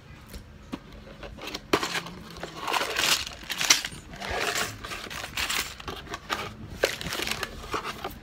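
Sealed plastic bags of toy building bricks crinkling and rustling as they are tipped out of a cardboard box onto a table, in a series of loud rustles with a few sharp knocks of bags landing.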